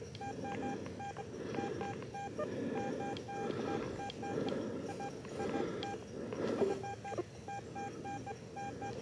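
Metal detector giving short, mid-pitched beeps, often in quick pairs or threes, again and again as the coil is swept over the grass. A soft rustle of the swings and footsteps in the grass runs beneath.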